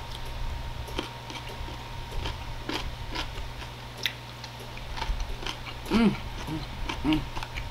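Close-up chewing and mouth sounds of a person eating, a string of small wet clicks, with two short hums of the voice about six and seven seconds in, over a steady low hum.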